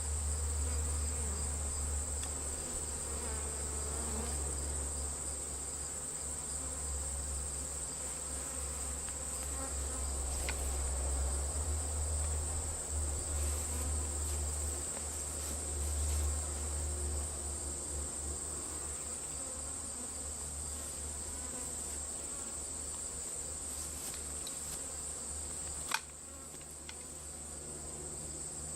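Steady high-pitched chirring of crickets with insects buzzing around a honeybee swarm, over a low rumble that swells and fades. A single sharp click near the end.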